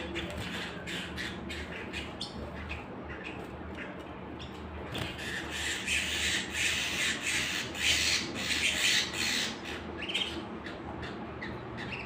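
Several caged canaries chirping and calling, with small sharp clicks as they move on perches and wire. About five seconds in, a louder burst of harsh, squawky chatter lasts around four seconds.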